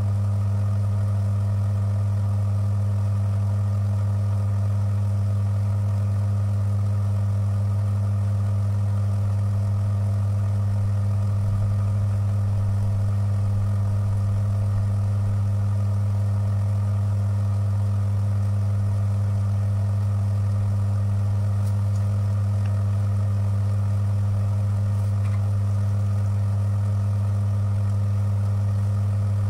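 Bench-top Timken-style lubricity tester running steadily under a load of eight weights, its electric motor turning a brass test roller. It gives a constant hum with a strong low tone, a weaker tone above it, and no change in pitch or level.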